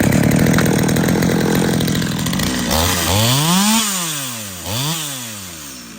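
Small two-stroke chainsaw (Holzfforma G111) running at high revs, then revved up and let back down twice, the sound dropping away toward the end. Its carburettor is freshly retuned leaner and no longer runs rich, and the chain oiler is turned down.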